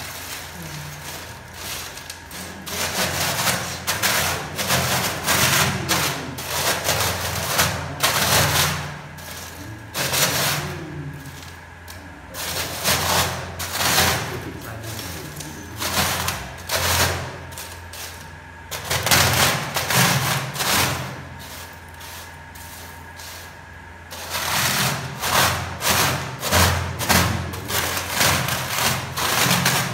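Cremated bone fragments being crushed and ground by hand and with a wooden pestle on a stainless steel tray: gritty crunching and scraping in repeated strokes. Near the end the strokes settle into a regular pounding, about one and a half a second.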